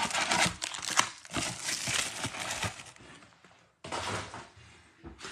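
Clear plastic wrap crinkling and rustling as a trading-card blaster box is unwrapped and handled, stopping about three seconds in, with a shorter crinkle again about a second later.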